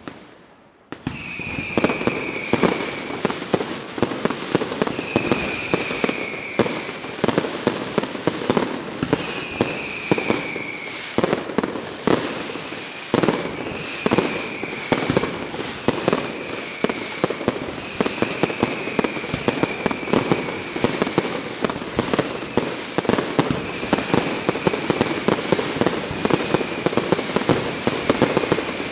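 Fireworks going off: a dense, rapid string of bangs and crackling starts about a second in and keeps up, with shrill whistles that fall slightly in pitch, each about a second long, coming every couple of seconds.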